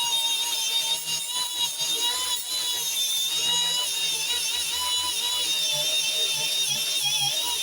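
Electric drill spinning an abrasive stripping disc against a metal cooling fan to take off old paint. It gives a steady whine whose pitch wavers as the load changes, over a grinding hiss.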